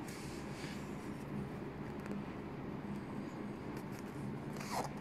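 Steady low hum, with faint soft rustles about half a second in and again near the end as metallic embroidery thread is drawn through chain stitches on felt.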